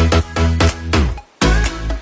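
Background music with a heavy electronic dance beat and strong bass, dropping out briefly for a moment just after a second in.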